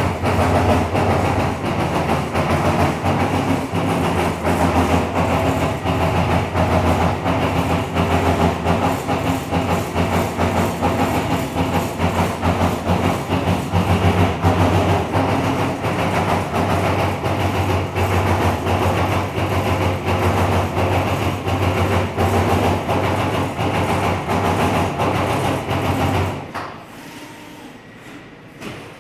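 Loud steady mechanical running noise with a low hum and a fast rattle, cutting off suddenly about 26 seconds in.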